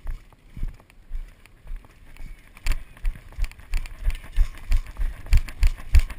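Footsteps of a person on foot, heard close to the microphone: a walking pace of about two steps a second, then breaking into a run of about three steps a second and louder from about two and a half seconds in.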